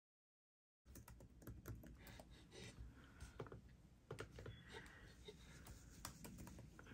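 Faint typing on a laptop keyboard: scattered, irregular soft key clicks, starting about a second in.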